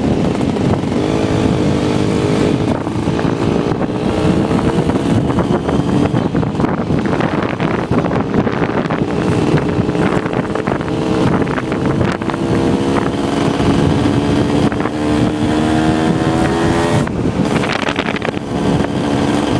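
Motorcycle engine running under way, its note climbing slowly as the bike gathers speed and then dropping about seventeen seconds in, with wind noise on the microphone.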